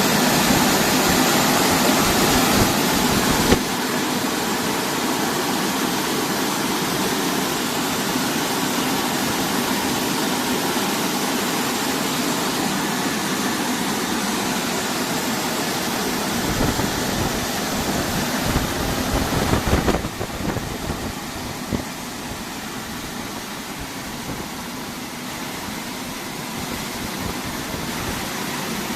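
Fully automatic car wash machine running: a steady rush of water spray with machine noise, stepping down in level about 3.5 seconds in and again about 20 seconds in.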